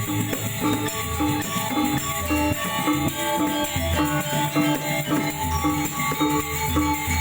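Balinese gamelan ensemble playing: bronze metallophones repeat a pattern of notes over recurring deep low tones, with a steady jangling shimmer of small cymbals on top.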